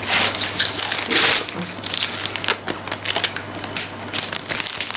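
Packaging being handled, crinkling and rustling in irregular bursts, typical of a soundbar's parts and cables being taken out of their wrapping.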